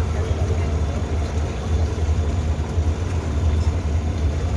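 Boat engines idling with a steady low rumble and a faint hum.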